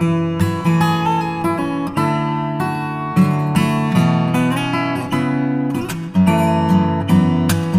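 Background music: acoustic guitar playing, with a string of plucked and strummed notes.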